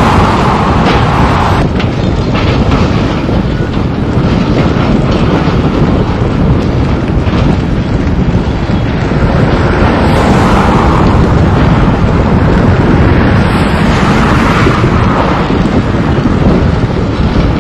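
Volvo demolition excavators working a rubble pile: diesel engines running under heavy wind buffeting on the microphone, with a few scattered knocks and crunches of debris.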